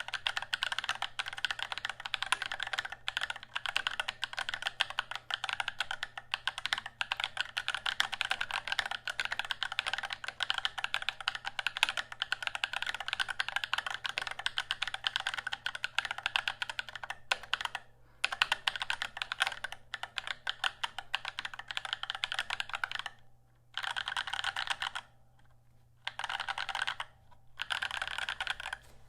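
Fast, continuous typing on a KPRepublic XD75re ortholinear mechanical keyboard with lubed Holy Panda tactile switches and PBT keycaps, in an acrylic case with foam between the steel plate and PCB. Dense keystroke clacks with a few short pauses near the end.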